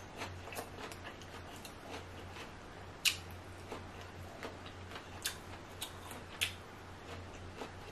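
Close-miked eating sounds: scattered soft clicks and crackles from picking meat out of a boiled king crab leg's shell by hand and eating it. The sharpest click comes about three seconds in, over a steady low hum.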